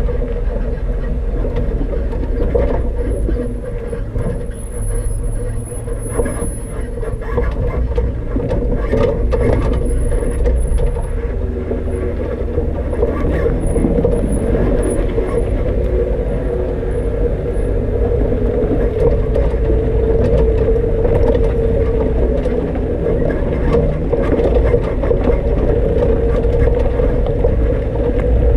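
Off-road vehicle driving up a rocky dirt trail: the engine runs steadily over a heavy low rumble, with scattered knocks and rattles from the rough ground.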